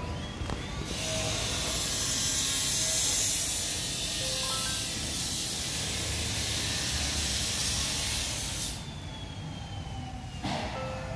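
A steady, loud hiss starts just under a second in and cuts off suddenly about nine seconds in, over faint background music.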